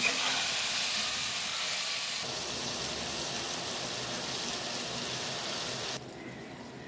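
Vegetable wedges sizzling in oil and spice paste in a frying pan while a metal spatula turns them. About six seconds in the sizzle cuts off abruptly to a much quieter simmer of the vegetables in added water.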